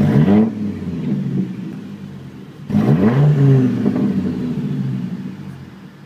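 Exhaust of a 2007 GMC Canyon's 3.7-litre inline five-cylinder, straight-piped with the muffler cut out and the catalytic converters kept, blipped twice from idle: a sharp rise in pitch at the start and another a little under three seconds in, each falling back to idle.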